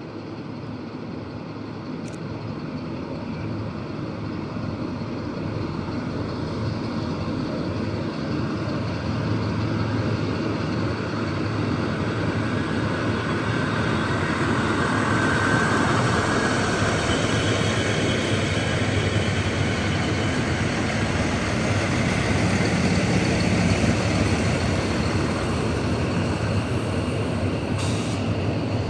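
Siemens Desiro diesel multiple unit's engines running under power as the railcar pulls out, growing louder over the first half and then holding steady.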